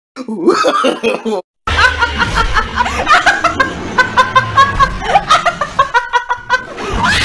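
A woman laughing loudly in a long run of short, rapid bursts, with some speech mixed in.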